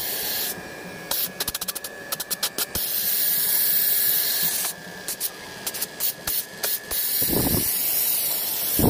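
Samsung Digital Inverter split-type outdoor unit running with its compressor on and a stand-in condenser fan turning: a steady hiss of moving air with a faint steady whine. It is broken by two runs of rapid crackling clicks, and a louder rush of air starts near the end.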